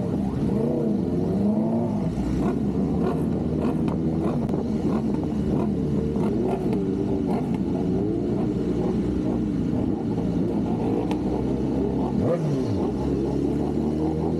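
Superbike engines running on the road, their pitch repeatedly rising and falling with the throttle, with a quick drop and climb in revs about twelve seconds in.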